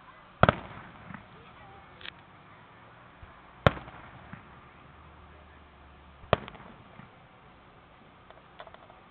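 Aerial firework shells bursting in the sky: three loud booms, about half a second in, just past a third of the way and about two-thirds through, each trailing off in a rolling echo. There is a fainter bang about two seconds in and light crackling near the end.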